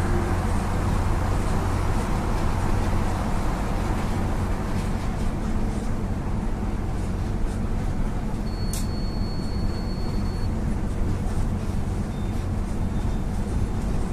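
Mercedes-Benz OF-1721 BlueTec 5 bus's diesel engine running steadily. A little past the middle a click is followed by a high steady beep lasting about two seconds, and fainter short beeps come near the end.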